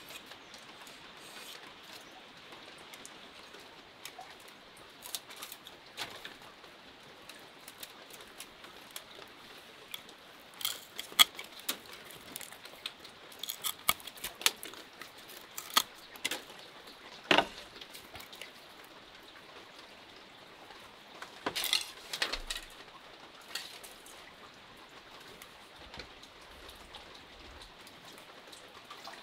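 Steady rain falling, with scattered sharp clicks and rustles of thin bamboo strips being worked into a woven basket, coming in clusters about ten seconds in and again a little past twenty seconds.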